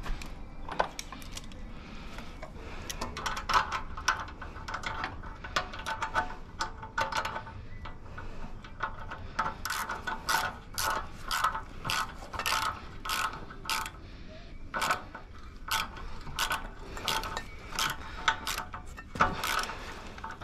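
Hand socket ratchet wrench clicking as a bolt is turned, in runs of strokes about twice a second, with a short pause partway through.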